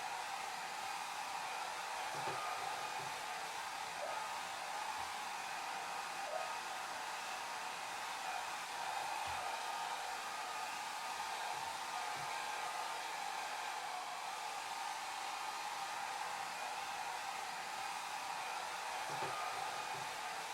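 Hair dryer running steadily: an even, unbroken airy rush, strongest in the middle of the range.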